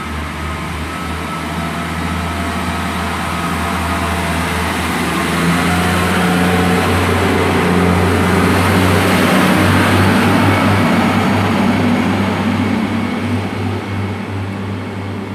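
Class 143 Pacer diesel multiple unit pulling away under power, its diesel engines running with a strong low hum. The sound grows louder for about ten seconds, then eases off a little.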